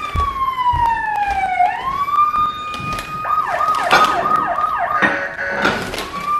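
Electronic siren sound effect from a ride-on toy truck's button dashboard: a steady tone that slides slowly down and back up, then about five quick falling yelps, then a rise near the end. Plastic clicks and knocks from the buttons being pressed are heard throughout.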